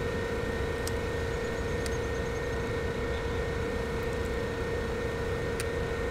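Steady hum of a hovering DJI drone's motors and propellers, one even tone with fainter overtones above it over a background of noise.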